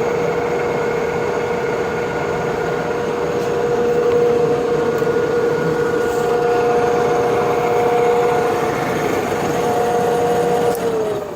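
Small Mighty Turn lathe's electric motor running with a steady whine over a rumbling hum. Near the end the motor is switched off and the whine falls in pitch as it spins down.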